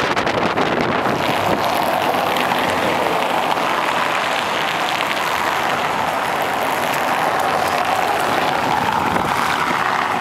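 Steady rushing road and wind noise of a moving vehicle, with a faint wavering hum underneath.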